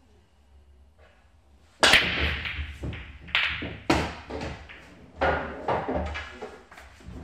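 English 8-ball (blackball) pool break: about two seconds in the cue ball smashes into the rack of reds and yellows with a sharp crack. A flurry of balls clacking together and knocking off the cushions follows for several seconds, dying away near the end.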